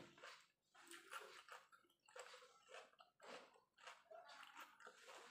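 Faint chewing and mouth-smacking of a person eating rice and fried fish, in short, irregular bursts.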